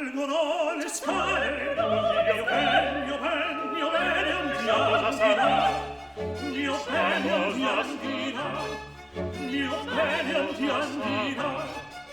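Operatic singing with vibrato over an orchestra with bowed strings, from an Italian opera recording.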